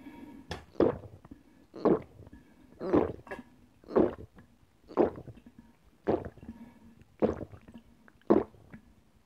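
A person gulping down grapefruit juice without a break, drinking from a large glass jug: loud, regular swallows about once a second, eight in all.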